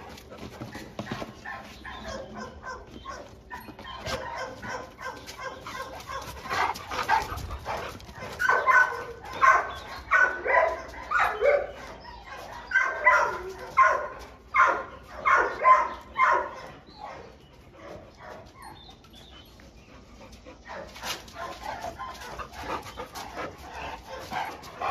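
A dog barking: a run of short, high barks about two a second from about eight to sixteen seconds in, with fainter dog sounds before them and a few more barks near the end.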